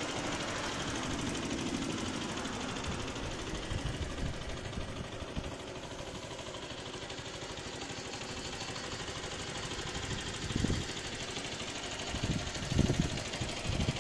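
A motor vehicle engine running steadily, with a few short louder swells near the end.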